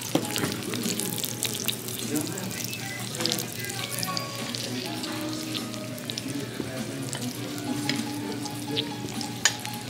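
Restaurant dining-room din: a steady hiss of background chatter with scattered clinks of plates, glasses and cutlery, one louder clink near the end, and faint music.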